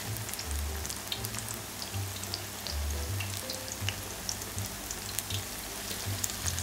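Natto and baby-sardine vegetable tempura fritters deep-frying in oil at about 170 °C, a steady dense crackle and sizzle of bubbling oil.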